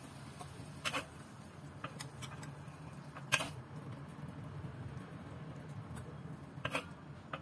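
Faint kitchen handling noise: three or four short, sharp clicks or taps spread over several seconds, above a low steady hum.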